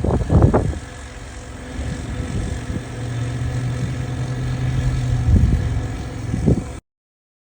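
An engine running, with a steady low hum and louder surges at the start and again near the end; the sound cuts off abruptly shortly before the end.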